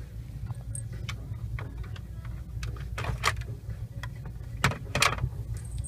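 Scattered plastic clicks and taps as a fake display desk phone's handset is picked up and handled, with louder clusters about three and five seconds in, over a steady low rumble.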